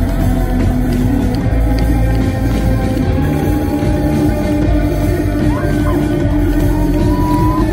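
Live rock band playing: drum kit and electric guitars, loud and steady, with a held high note near the end.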